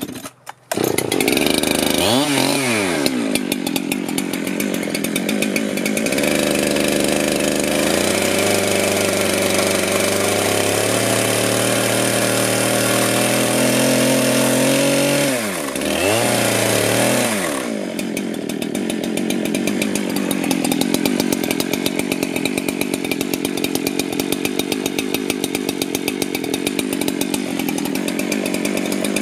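Chainsaw running and cutting into a log, dropping in pitch and revving back up twice, then running steadily under load.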